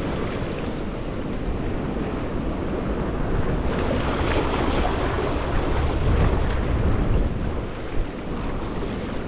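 Wind buffeting the microphone in a steady low rumble over the wash of sea waves, with a single short knock about eight seconds in.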